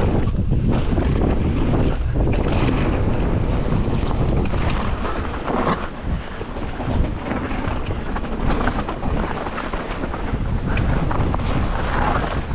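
Heavy wind buffeting on the microphone from riding a mountain bike downhill on a dirt trail, with tyre and trail rumble and scattered knocks from the bike over bumps.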